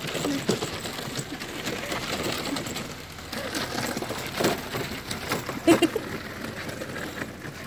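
Hard plastic wheels of a child's toy wagon rolling over gravel, a steady crunching rattle.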